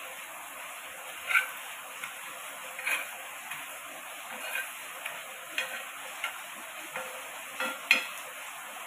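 Puris frying gently on a tava over low heat, a steady soft sizzle. Short scrapes and taps every second or two come from a spatula spreading the garlic-butter topping across them.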